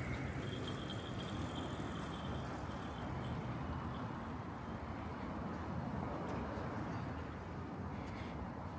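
Steady hum of road traffic, with a faint high whine for a couple of seconds early on and a slight fall in level near the end.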